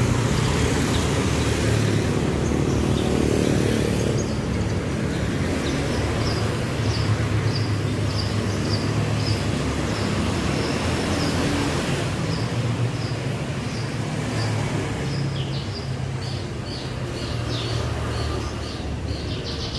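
Street traffic: a vehicle engine running steadily close by, with a small bird chirping over it, short high notes repeating about once or twice a second from about six seconds in.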